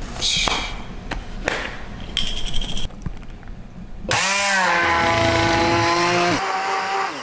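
Stainless-steel immersion blender motor whining up to speed about four seconds in, then running steadily as it blends fruit, almond milk and protein powder in a plastic cup. It drops in pitch and level shortly before stopping. Before that come knocks and handling noises as almond milk is poured into the cup from a carton.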